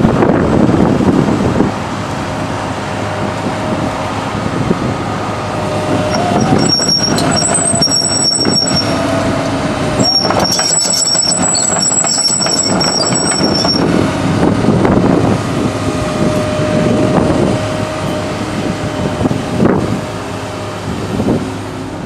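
Komatsu PC200LC-8 excavator's six-cylinder turbo diesel engine running loud and steady, its note rising about six seconds in and again near the end. A high-pitched squeal comes and goes over several seconds in the middle.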